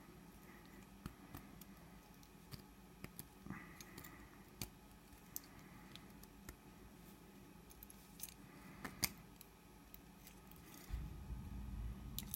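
Faint, scattered small metallic clicks and scrapes from a makeshift follower being worked into an American 1100 series padlock's plug to gut its pins, with a louder click about nine seconds in. Low handling noise comes up near the end.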